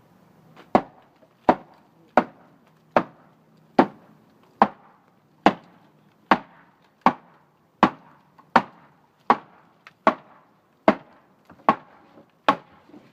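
Steady, evenly paced strikes on wood, about sixteen blows roughly one every 0.8 seconds, each a sharp knock.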